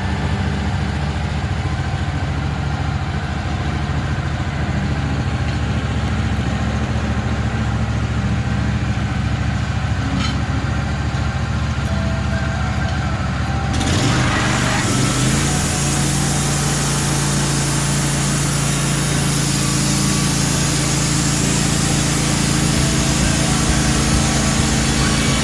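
Portable sawmill's engine running steadily. About 14 s in it speeds up to a higher steady pitch and a higher hiss joins it.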